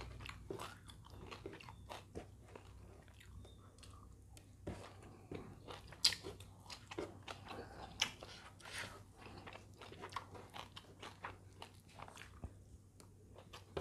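A person chewing food close to the microphone, a mouthful of rice with side dishes: irregular wet smacks and small crunches, with a few sharper clicks.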